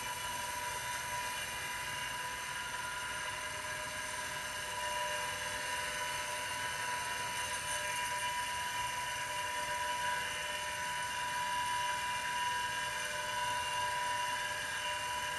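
IBM XT 5160 10 MB hard drive running with its cover off, the spindle motor turning the platter with a steady whine made of several pitches. The spindle bearings sound unhappy, and the drive is spinning without coming up to speed on its own.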